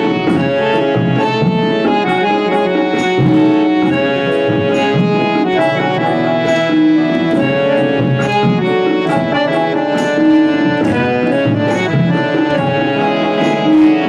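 Instrumental interlude of a Hindi Christian devotional song, with no singing: a sustained instrumental melody over a steady rhythmic beat.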